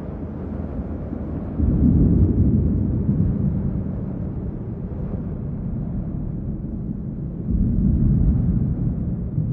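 A low, noisy rumble that swells suddenly about one and a half seconds in, eases off, and swells again near the end.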